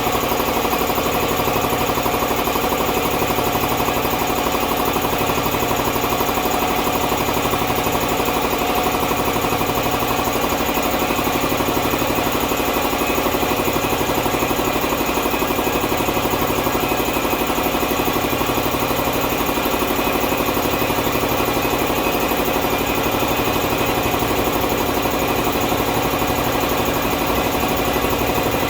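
Champion air compressor running steadily on three-phase power, pumping up its tank. A constant motor-and-pump hum with a slow, regular pulsing in the low end.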